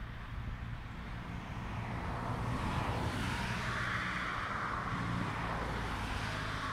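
Engine noise of a passing vehicle: a steady low drone under a rushing sound that swells from about two seconds in and holds.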